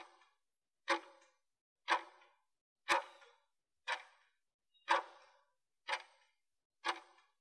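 Countdown timer's tick sound, one short sharp tick each second, eight in all, marking the last seconds of the 30-second work interval.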